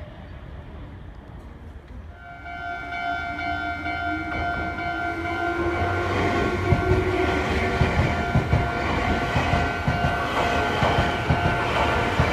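Railway level-crossing warning bell ringing steadily, louder from about two seconds in, as a Meitetsu electric train comes through: a rising whine, then a steady rumble with wheels clacking over the rail joints from about halfway.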